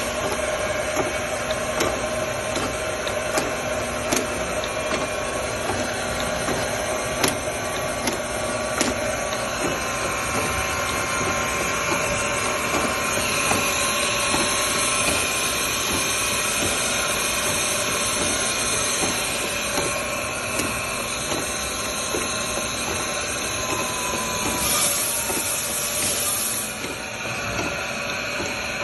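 Kent surface grinder running: a steady whir and hiss from the motor and spinning wheel, with scattered sharp clicks in the first half and a brief rise in the hiss near the end.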